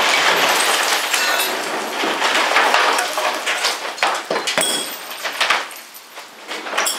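Steel pickup truck bed being handled and shifted by hand: a run of knocks, clinks and scraping, with a few brief high metallic rings.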